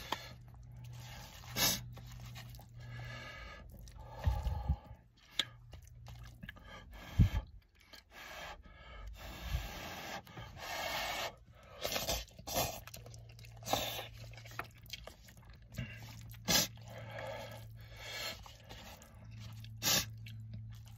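A person eating instant ramen: slurping and chewing noodles, with wooden chopsticks scraping and tapping against the inside of the cup in short irregular clicks. A low steady hum runs underneath.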